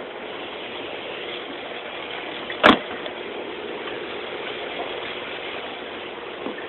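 A steady engine hum, with one sharp, loud click about two and a half seconds in.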